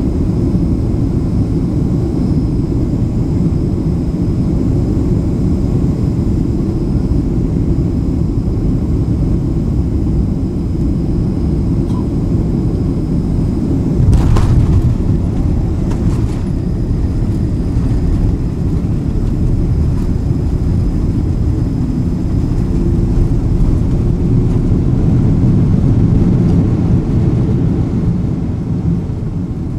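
Cabin noise inside a Boeing 767-300ER: a loud, steady low rumble of engines and airflow, with a brief thud about halfway through and the rumble swelling for a few seconds near the end before easing.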